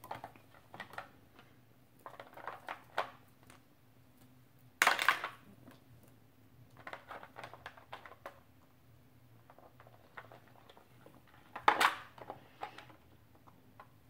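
Plastic toy fruits clattering and knocking against each other and a clear plastic tub as an African grey parrot rummages through them with its beak, in scattered bursts with two louder clatters about five seconds in and near the end.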